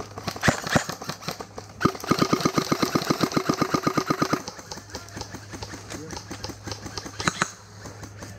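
Airsoft electric rifles firing: a few single shots, then a rapid full-auto burst lasting about two and a half seconds, and another single shot near the end.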